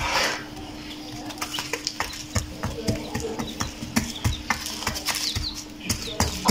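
Small chicks in a cardboard brooder: a quick scatter of small taps and scratches, like pecking and stepping on cardboard and wood shavings, with a few faint peeps, over a steady low hum.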